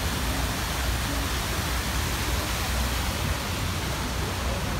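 Fountain jets spraying and splashing onto a glass dome and into the basin, a steady rush of water over a low rumble.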